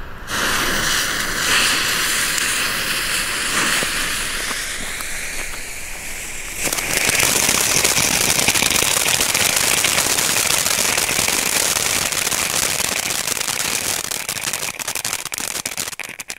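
Three Lemon Spider firework fountains spraying sparks: a steady hissing spray that gets louder and densely crackling about six and a half seconds in, thinning out near the end.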